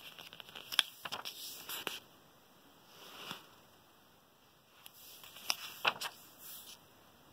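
Paperback workbook pages being handled and turned: paper rustling with sharp crinkles and taps, in a burst at the start, a soft swish about three seconds in, and another burst around five to six seconds in.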